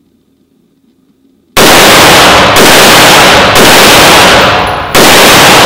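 Short-barrelled AR-15 rifle with its standard buffer weight fired four times, starting about a second and a half in, the shots about a second apart with a slightly longer pause before the last. Each shot is very loud and rings on with a long echo in an indoor range.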